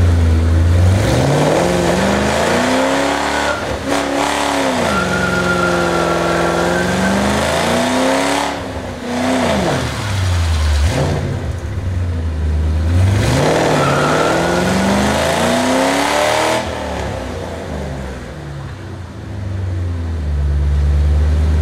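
2007 Ford Mustang GT's 4.6-litre V8 revving up and down in a line-lock burnout, the front brakes held while the rear tyres spin. The revs climb and fall about four times, then settle lower near the end.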